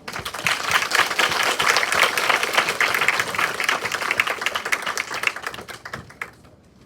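Audience applauding, dense quick clapping that dies away about six seconds in.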